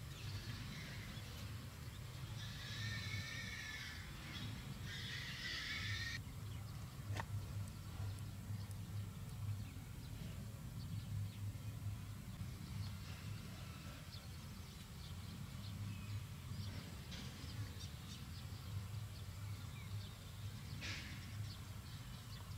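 Two high, wavering animal calls, one right after the other, a few seconds in, the second cutting off abruptly; a steady low hum runs underneath.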